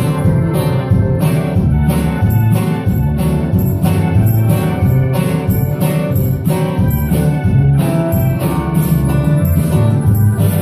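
Live church band playing a song: acoustic guitar and electric bass over a steady beat.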